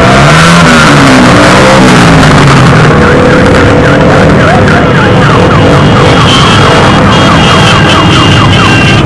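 Loud engines of many motorcycles revving and running as a group rides past. From about three seconds in, a rapidly warbling siren-like tone repeats over the engines.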